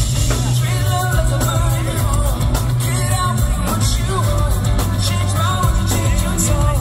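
Rock band playing live and loud, a singer's voice riding over steady bass and drums.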